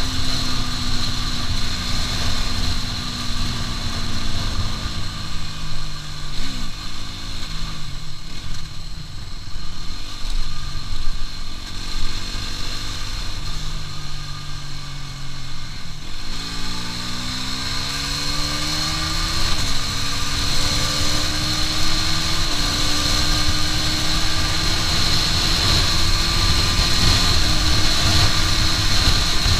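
Aprilia RS4 125's single-cylinder four-stroke engine heard from the rider's seat, with wind buffeting the microphone. The revs fall away over the first several seconds and sit low for a while. About halfway through they pick up sharply and climb again in steps as the bike accelerates.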